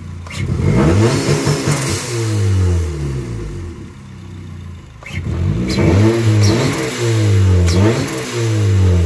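Turbocharged Honda Civic R18 four-cylinder engine revved repeatedly, its pitch climbing and falling back several times, with a few short sharp bursts between revs.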